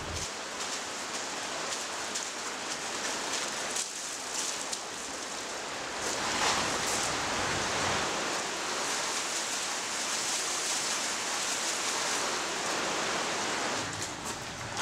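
Water running through a concrete storm-drain tunnel: a steady rushing hiss that gets a little louder about six seconds in.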